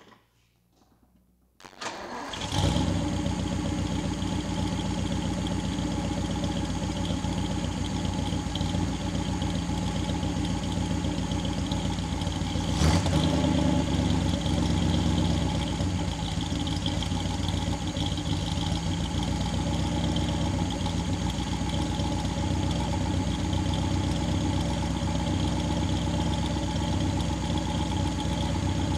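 1959 Daimler SP250's 2.5-litre V8 starting from cold: a few light clicks, then it cranks briefly and catches about two seconds in, settling into a steady idle. About halfway through there is one sharp knock, and the idle runs a little louder for a few seconds after it.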